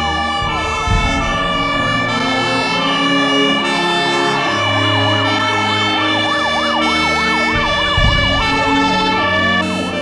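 Fire engine siren wailing in fast rising-and-falling sweeps over background music.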